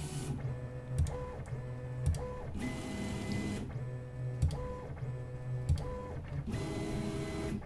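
3D printer stepper motors whining in short pitched moves as the toolhead steps between probe points during automatic bed levelling, with a few sharp clicks and two stretches of hiss between moves.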